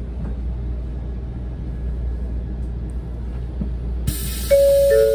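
Steady low running rumble inside a Tokaido Shinkansen car. About four and a half seconds in, the on-board public-address system comes on with a chime alternating between a higher and a lower tone, the signal that an announcement, here for the approach to the next station, is about to follow.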